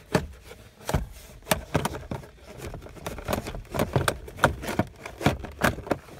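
Hard plastic centre console trim of a 1996–98 Honda Civic being worked loose by hand: an irregular run of sharp clicks and knocks, two or three a second.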